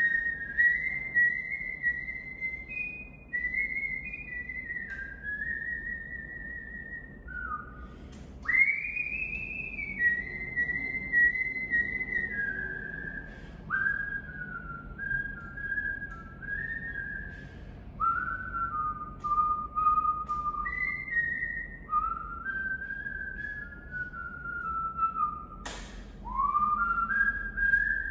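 A person whistling a slow, wandering tune in phrases of several held notes, each phrase sliding up into its first note. There is a sharp click near the end.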